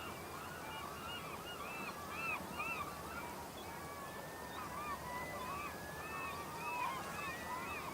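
A flock of birds calling: many short, quickly repeated honking calls overlapping, with a few longer gliding calls in the middle, over a steady hiss.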